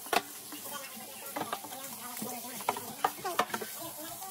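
Kitchen tap water running onto an air fryer drawer in a stainless steel sink as it is rinsed and wiped by hand, with scattered sharp clicks and short squeaks.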